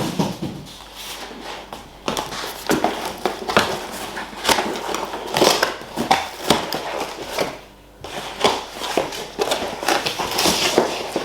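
A cardboard shipping box being opened and unpacked: irregular crackling, scraping and knocks of cardboard and packing handled by hand, with a short pause near the end.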